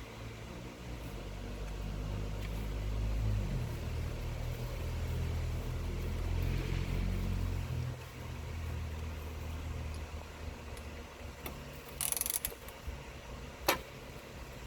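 A low mechanical rumble, like a vehicle engine running, builds and then cuts off about halfway through. Near the end come a short rasp and one sharp metallic click from tool work.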